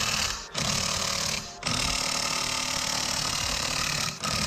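Cordless impact wrench hammering on a car's wheel lug nuts. It runs in two bursts of under a second each, then about two and a half seconds without a break, with a brief stop near the end. The nuts are very tight, torqued down far too much.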